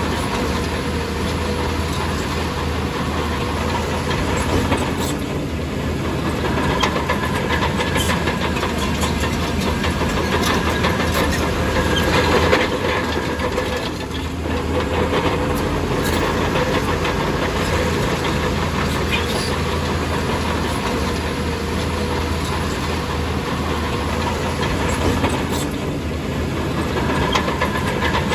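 Crawler bulldozer's diesel engine running steadily, with irregular metallic clanks and clicks from its tracks.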